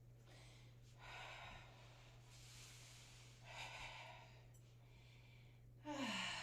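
A woman breathing out audibly while catching her breath after a cardio workout: three slow exhales, then a voiced sigh that falls in pitch near the end.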